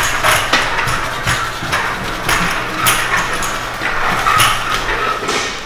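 Child's kick scooter rolling over a tiled floor, its small hard wheels clacking over and over.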